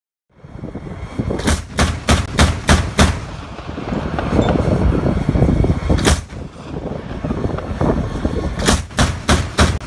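Armoured vehicle running with a steady low rumble, over which sharp gunfire bangs go off. There is a quick run of about six shots from a second and a half in, a single shot near six seconds, and another fast run of about five near the end.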